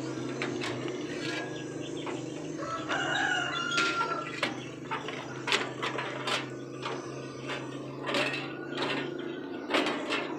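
A rooster crows once about three seconds in, over a series of sharp metallic clicks and knocks from hand work on the coffee huller's fan assembly. A steady low hum runs underneath.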